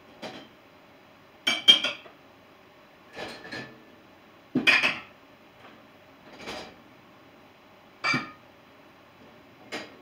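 Dishes and cutlery clinking and clattering as they are taken out of an open dishwasher's racks, in about seven short separate bursts, roughly one every second or so.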